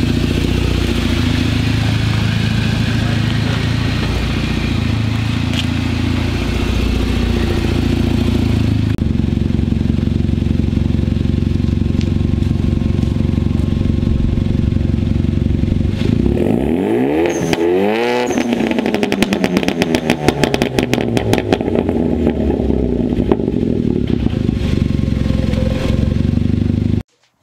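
Hyundai Veloster Turbo's 1.6-litre turbocharged four-cylinder idling through a 3-inch Nth Degree turbo-back exhaust with a high-flow catalytic converter. A little past halfway it is revved once, the pitch sweeping up and falling back. As it settles back to idle, a long run of rapid pops and crackles comes from the exhaust. The sound cuts off suddenly near the end.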